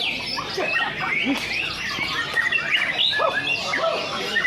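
White-rumped shama (murai batu) song: a dense, unbroken run of quick rising and falling whistles and chirps.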